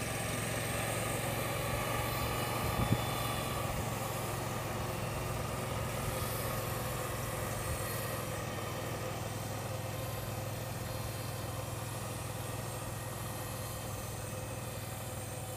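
Engine of a turf utility vehicle carrying a sprayer tank, running steadily at low speed with a constant low hum. A single brief knock comes about three seconds in.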